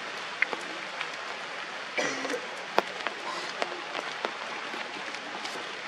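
Steady rain falling on forest leaves, with sharp, louder drips landing close by every second or so.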